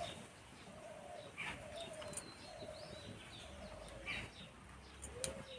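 Faint cooing of a dove, a run of about five soft, low calls, with a few brief high bird chirps among them.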